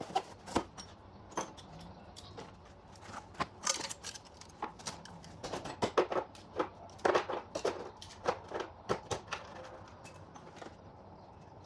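Hand tools, screwdrivers among them, clinking and clattering as they are picked up and moved about on a cluttered workbench: irregular metal knocks and rattles that thin out over the last couple of seconds.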